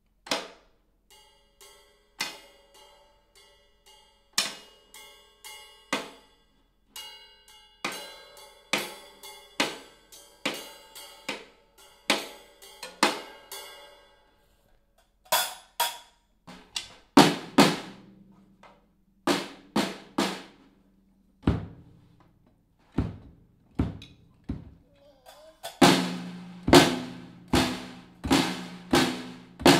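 A young child hitting an acoustic drum kit with drumsticks: single strikes on the snare and other drums, unevenly spaced and without a steady beat. The strikes come faster and louder in the second half, and are densest near the end.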